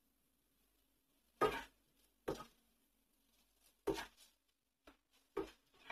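Wooden spatula stirring cooked rice in a non-stick frying pan: about five short strokes against the pan, with near silence between them.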